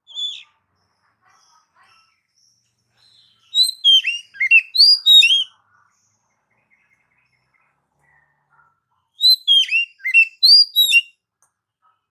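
Oriental magpie-robin (kacer) singing: a short note at the start, then two near-identical phrases of quick, sliding whistled notes about five seconds apart.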